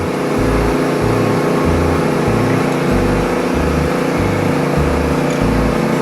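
Wood-Mizer LT15START band sawmill's engine running steadily under throttle, with a steady high rushing noise over the engine note.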